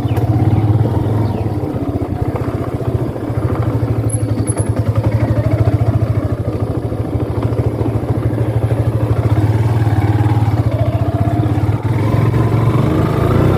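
Motorcycle engine running while riding, a steady, fast, even throb.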